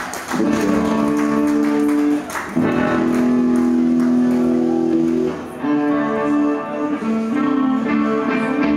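Electric guitar playing loud, sustained chords that ring out, each held for a second or more, with short breaks about two and a half and five and a half seconds in.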